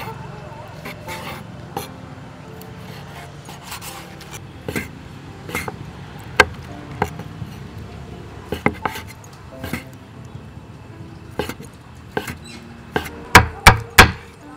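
A kitchen knife chopping cooked octopus tentacles on a wooden cutting board: scattered knocks of the blade against the board, ending in three quick hard chops.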